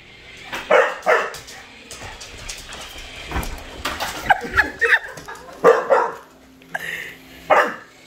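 A dog barking in short, loud barks, singly and in quick pairs or clusters, about eight in all: barking at a remote-control toy car that scares it.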